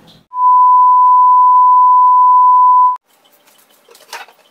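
A single loud, steady electronic beep tone at one pitch, lasting about three seconds and cutting off sharply, like an edited-in bleep. A short faint knock follows near the end.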